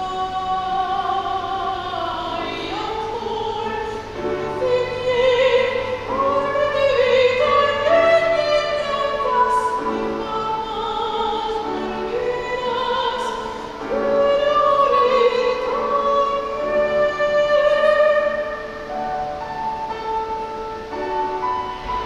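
An operatic solo voice sings a zarzuela number with wide vibrato, accompanied by grand piano.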